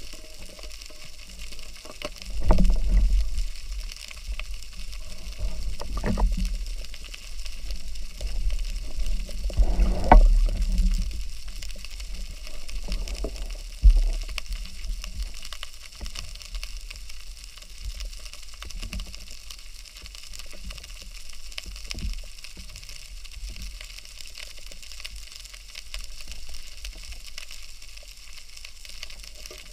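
Muffled underwater water noise heard through a camera housing: a steady low rushing with a few dull knocks, the loudest around 2–3 s in, about 10 s in and a sharp one near 14 s.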